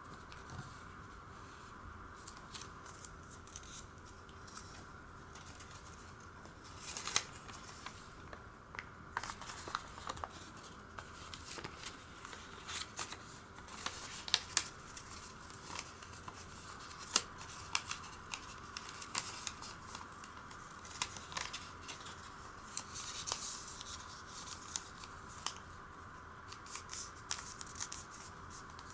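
Origami paper crinkling and creasing under the fingers as it is folded, opened out and pressed flat: irregular crisp crackles and rustles, with a few sharper snaps.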